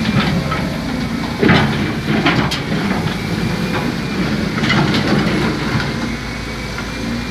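Excavator's diesel engine running steadily while loading soil into a dump truck, with sharp clanks and knocks about a second and a half, two and a half and five seconds in.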